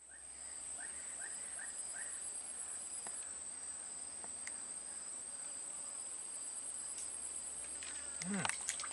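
Steady high-pitched insect trill, with a faint pulsing second tone beneath it. About eight seconds in, splashing starts as a hooked fish thrashes at the surface.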